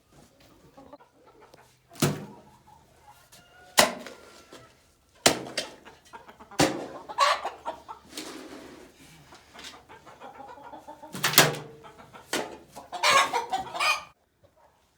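Backyard chickens clucking, with several loud, sudden sharp sounds spread through and a burst of calls near the end.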